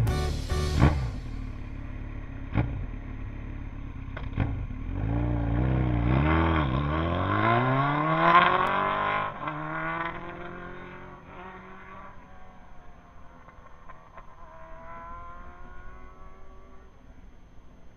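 Motorcycle engine accelerating, its pitch climbing to a peak about eight or nine seconds in, then dropping away. Fainter rising notes follow as it pulls away through the gears and fades.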